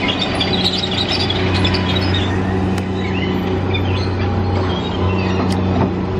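A steady low engine or machine hum, with birds chirping over it in the first half and a few sharp clicks near the end.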